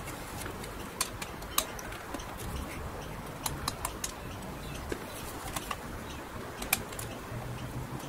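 Scattered light clicks and taps, a dozen or so at irregular intervals, from a screwdriver and small parts being handled, over a steady low background hum.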